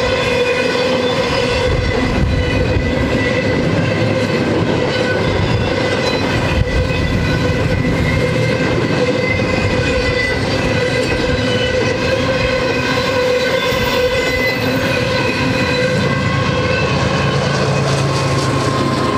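Loaded double-stack container well cars of a freight train rolling steadily past on the rails, with the rumble and clatter of the wheels and a steady ringing tone over it. Near the end a BNSF diesel locomotive arrives and its engine adds a deeper steady drone.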